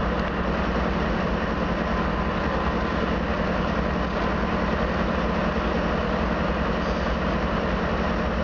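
Freight train's diesel locomotive engine running steadily, a low, even drone with a constant noisy wash over it.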